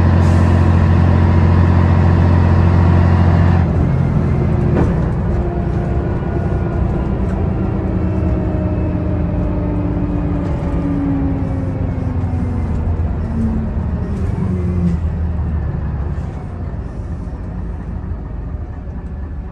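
Scania BR112DH double-decker bus heard from on board, its diesel engine running loudly under power and then easing off about four seconds in. A slowly falling whine follows as the bus slows, and the sound drops again near the end.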